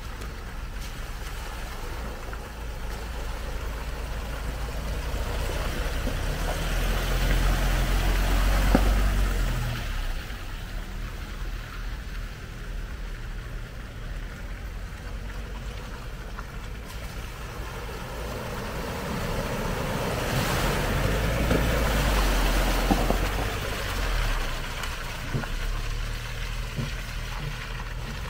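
Pickup trucks' engines running as they drive through a muddy stream crossing one after another, each swelling louder and then fading as it passes, with water splashing. This happens twice, the first truck about eight seconds in and the second just past twenty seconds.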